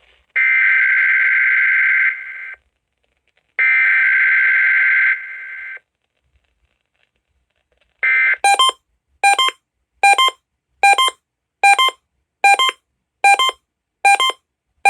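EAS SAME header data bursts, the harsh digital squawk of an emergency alert encoder, sounding twice about 2 s each with a pause between. After about two seconds of silence comes a string of short, sharp alert beeps, a little more than one a second.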